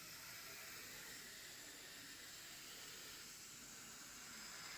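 Aerosol can of shaving foam spraying foam in one long, steady hiss that grows a little louder near the end.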